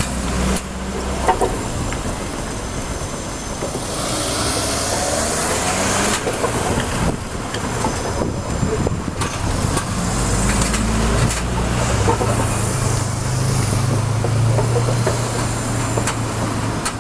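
Road traffic: motor vehicle engines running and idling, with vehicles passing by twice.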